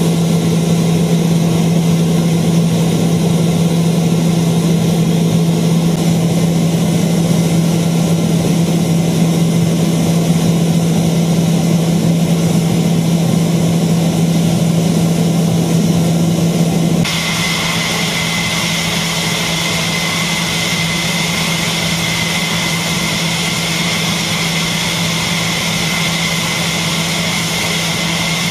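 Steady engine running on a jet fighter flight line, with a strong low hum. About two-thirds of the way through it changes suddenly to a slightly quieter engine sound with a steady high whine.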